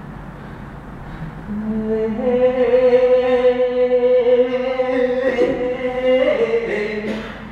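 Voices chanting in long held notes, coming in about a second and a half in, the pitch stepping down a couple of times near the end before fading out.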